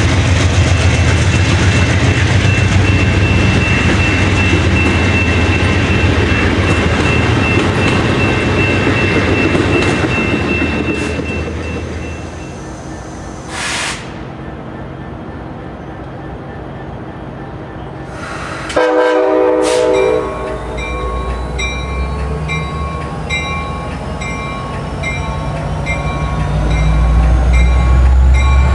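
Bilevel passenger cars rolling past close by, with wheel and rail noise and a steady high ringing tone. After a quieter stretch, a passenger locomotive approaches, sounds a short horn blast about 19 seconds in, and its rumble grows louder as it nears, with a thin rising whine.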